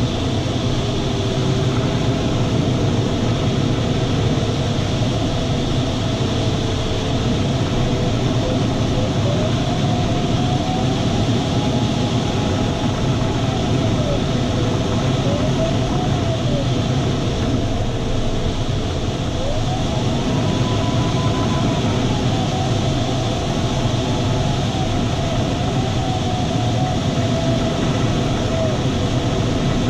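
Steady rush of airflow around a glider's cockpit in flight. Over it an electronic variometer's tone slides slowly up and down in pitch, climbing highest about ten and twenty seconds in, as it signals the changing lift and sink.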